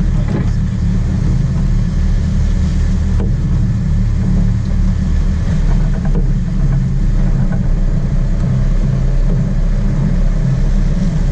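Sport-fishing boat's engines running with a steady low rumble.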